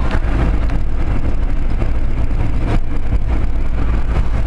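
Steady engine and road rumble inside the cab of a GAZelle light truck driving along.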